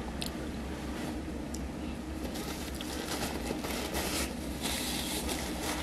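Brown paper bag crinkling and rustling as it is handled, starting a little over two seconds in, over a steady low hum.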